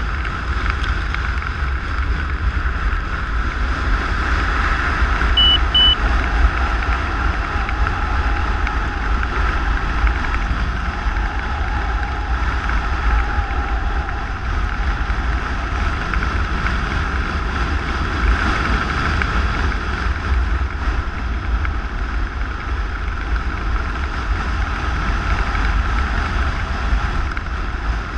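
Loud, steady wind rushing over the camera microphone during wingsuit flight, with a deep buffeting rumble. Two short high beeps sound about six seconds in.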